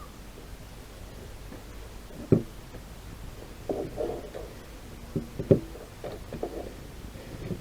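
A few knocks and clunks: a sharp knock a little over two seconds in, a louder one about five and a half seconds in, and short bursts of rattling clunks between and after them.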